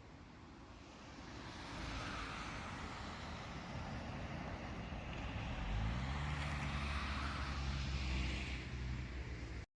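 A motor vehicle passing, its engine noise building up and growing loudest from about six seconds in, then cutting off abruptly near the end.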